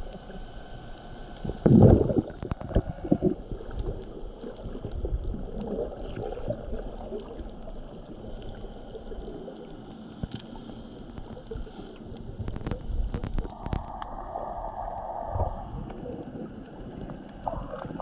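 Muffled underwater gurgling and sloshing of water around a submerged camera, with a loud knock about two seconds in and a cluster of sharp clicks near the end.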